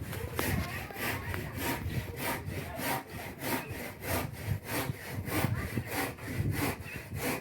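Hand saw cutting through wood in quick, even strokes, about three a second.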